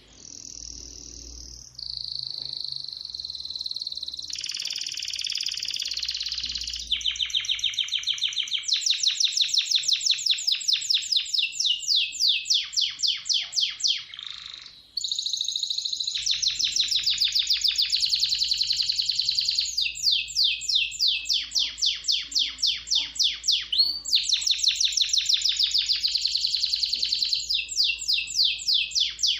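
Domestic canary singing a long, high-pitched song made of fast trills and rolling runs of repeated notes, with one brief break about halfway through.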